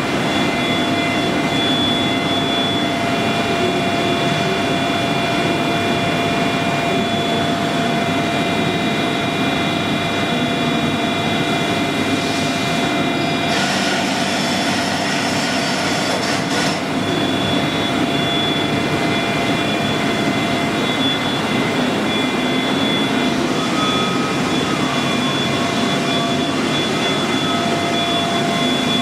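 UNION CBFT 105 CNC table-type horizontal boring mill running: a steady mechanical hum with several high, fixed whining tones. A louder hiss cuts in about a third of the way through and stops suddenly some three seconds later.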